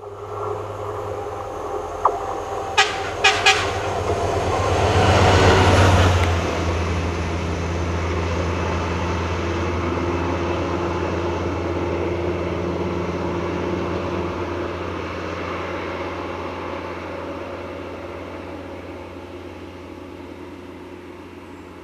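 IMV100 track recording railcar passing over a bridge: its engine hum and running noise, with a few sharp clicks about two to three and a half seconds in. Loudest about six seconds in, then fading steadily as it pulls away.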